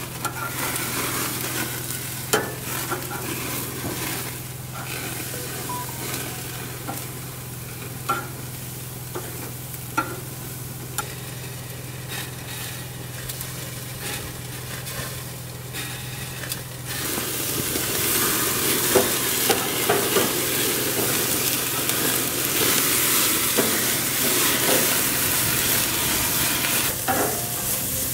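Food sizzling and frying in a pan, with scattered clicks of a utensil, over a steady low hum. The sizzle grows louder a little past halfway.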